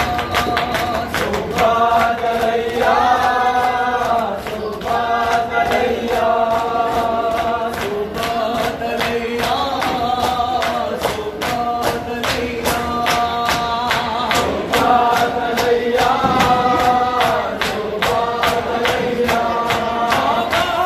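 A group of men chanting a Shia mourning lament (nauha) in unison, phrase after phrase, over a steady beat of sharp slaps from hands striking chests in matam.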